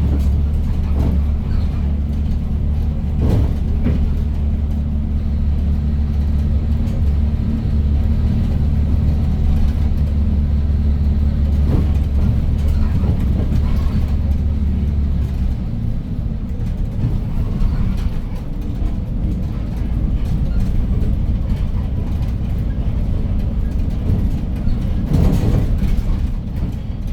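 Hyundai New Super Aerocity city bus with a 290 hp CNG engine, driving, heard from inside the bus. A steady low engine drone drops away about fifteen seconds in, leaving a rougher road rumble with a few knocks and rattles.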